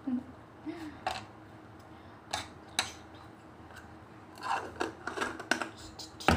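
Kitchen handling clicks and scrapes: a knife and plate being set down, then a plastic jar lid being screwed shut, with a run of clicks about four and a half seconds in and a loud click at the end.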